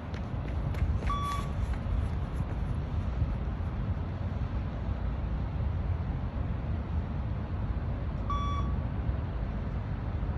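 Two short electronic beeps from a 20 m shuttle-run (beep test) recording, the first about a second in and the second about seven seconds later, each marking the end of a timed shuttle at level 3. A steady low rumble runs under them.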